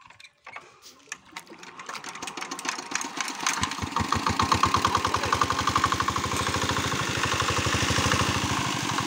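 Single-cylinder diesel engine of a shallow-machine water pump starting up: scattered firing strokes from about a second in quicken into an even, steady run by about four seconds in. Water from the pump's outlet splashes into the pond.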